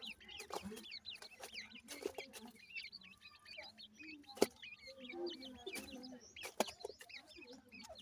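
Francolin chicks peeping in quick, high, continuous chirps while a brooding hen clucks low and softly among them. Two sharp taps, the louder about halfway through and another a couple of seconds later.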